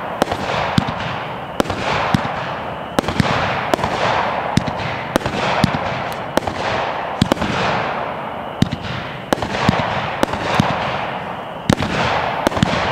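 Smoking Alien 'Ganja Club' 500-gram, 30-shot firework cake firing a steady volley, with a sharp bang about every three-quarters of a second as the 3/4-inch tubes launch and break. Between the bangs comes a fading hiss from the glitter willow tails.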